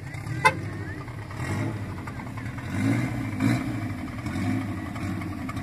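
Chevrolet Chevette's 1.6-litre alcohol-fuelled four-cylinder engine running as the car drives slowly, swelling briefly about three seconds in. A short sharp click stands out about half a second in.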